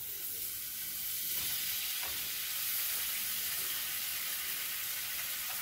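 Butter sizzling and frying in a hot frying pan on the stove: a steady hiss that sets in as the butter hits the pan and holds even.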